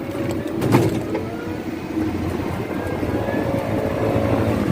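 Steady road and traffic noise during a ride on a three-wheeled e-bike, a low rumble throughout, with one brief knock about three quarters of a second in.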